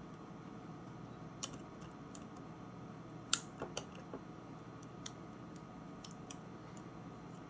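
Scattered small metallic clicks and scrapes as a Master Lock combination padlock is handled and a shim cut from an aluminium drink can is worked into its shackle, with the loudest click about a third of the way in. A steady low hum sits underneath.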